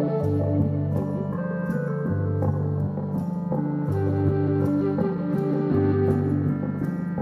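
Live meditative electronic music from synthesizers and guitar: sustained drone tones over a repeating low bass figure, with a light ticking pulse on top.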